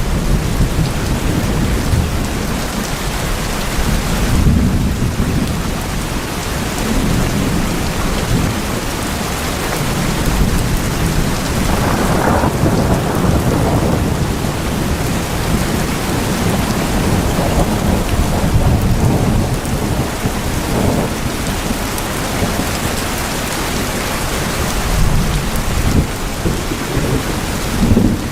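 Steady heavy rain falling on tin houses, with low rolling rumbles of thunder that swell and ease.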